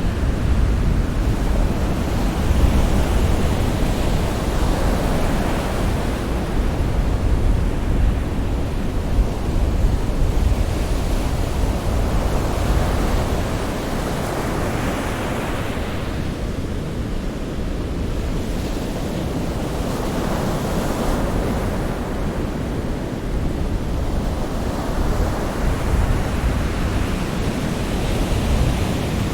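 Sea surf: waves breaking and washing in a steady rush, swelling about every seven seconds.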